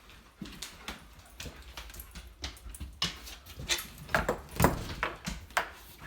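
Footsteps on a wooden floor: a run of irregular knocks, two or three a second, loudest about four to five seconds in.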